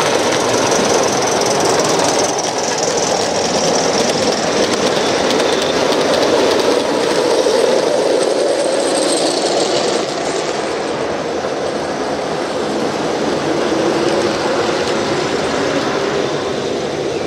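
Gauge 1 model train running on a garden railway, its wheels rolling along the track in a steady rumble that eases slightly about ten seconds in.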